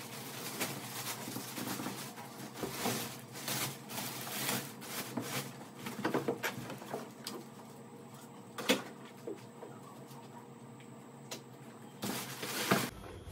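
Clear plastic wrapping rustling and crinkling as it is pulled off a plastic toy motorbike, with knocks of the plastic body against its cardboard box; one sharp knock about nine seconds in.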